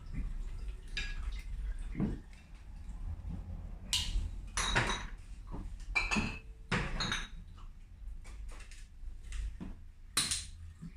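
Scattered clinks and knocks of glassware and kitchen utensils being handled, with a few louder clatters between about four and seven seconds in and another near the end.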